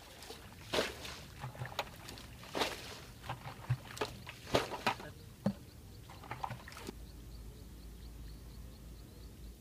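Irregular splashes and sloshes in shallow muddy water, a dozen or so sharp ones over the first seven seconds, then a low steady rumble.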